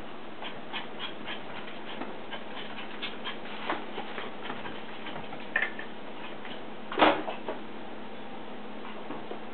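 Havana Silk Dog puppy's claws clicking irregularly on a tile floor as it moves about, several clicks a second at first, then sparser. A brief louder noise about seven seconds in.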